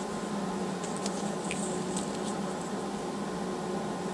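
A few faint small clicks as alligator clips are handled and clipped onto thin battery wires, over a steady background hum.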